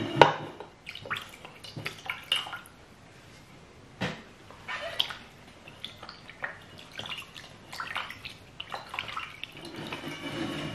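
Hands washing in a metal bowl of water: irregular splashes, swishes and drips, with a sharp knock just after the start.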